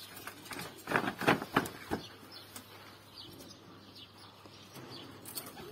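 Domestic pigeons cooing faintly in the background. A quick run of four or five sharp knocks comes about a second in.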